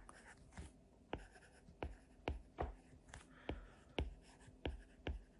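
Stylus handwriting on a tablet screen: faint, irregular taps, two or three a second, with light scratching between them.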